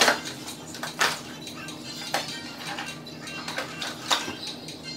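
Small metal assembly hardware clinking and rattling as a cardboard parts box is opened and handled, with several sharp clinks spread about a second apart.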